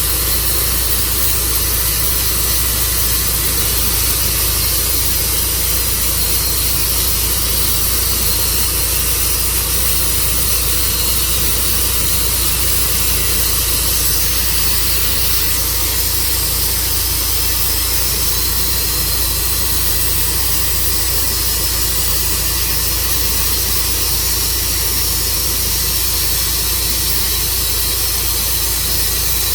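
Tru-Cut sawmill running steadily as it cuts into an elm log: a loud, unchanging engine drone with a strong hiss.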